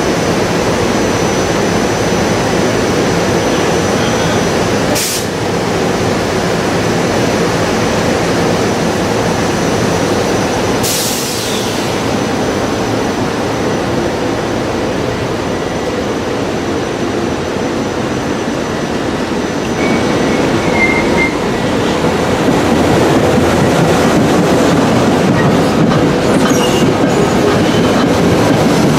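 Commuter train running on the rails past the station platform: a steady, loud rumble of wheels on track. There are two sharp clacks about five and eleven seconds in, and the sound grows louder about twenty seconds in.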